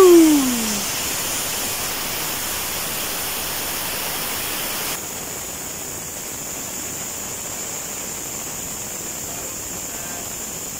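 A falling, gliding tone dies away in the first second, then a steady hiss that drops in level about five seconds in.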